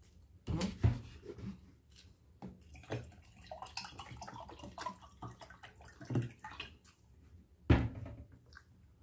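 Water poured from a plastic bottle into a small drinking glass, trickling for a second or two in the middle. Two loud knocks come about a second in and near the end, with smaller clicks between them.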